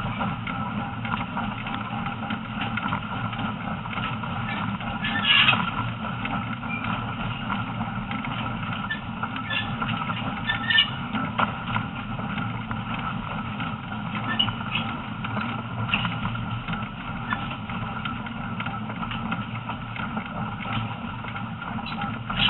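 Heritage train running along forest track: a steady rumble of the train and its wheels on the rails, with a few brief high squeaks, the loudest about five seconds in and again near the end.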